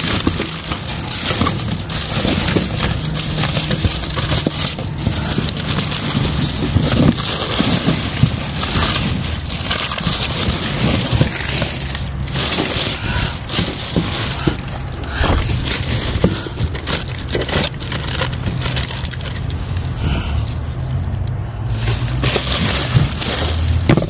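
Plastic bags and bubble wrap crinkling and rustling as they are pushed aside and rummaged through by hand, with a few sharper crackles, over a low steady hum.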